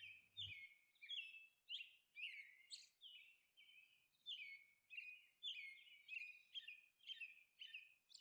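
Faint bird chirping: a steady run of short, high chirps, about two a second.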